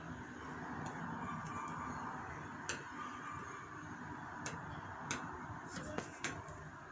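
A handful of faint, irregular clicks and ticks, seven or so, spaced unevenly over a steady low room noise. The last few come close together near the end.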